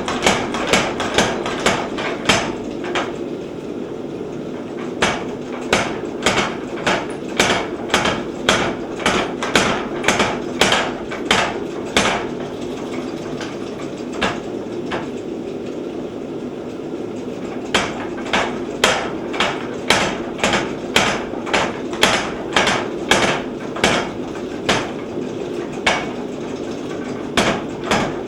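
Repeated hammer blows on hot steel bar stock being drawn down, about two strikes a second with a few short pauses, over a steady hum.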